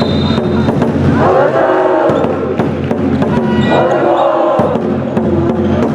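A crowd chanting in unison over band music, in long shouted calls roughly every two and a half seconds, with sharp knocks throughout.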